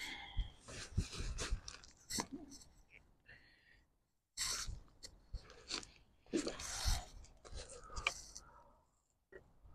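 Irregular crunching and rustling close to the microphone, coming in short uneven bursts, with two brief breaks.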